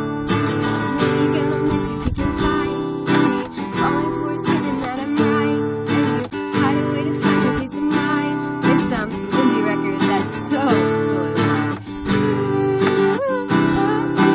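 Acoustic guitar strumming chords in a steady rhythm, accompanying a pop song, with a singing voice coming in at times.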